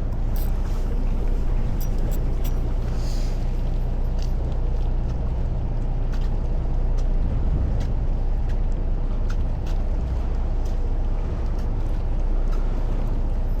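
A fishing boat's engine running steadily with a low rumble, with scattered faint clicks over it.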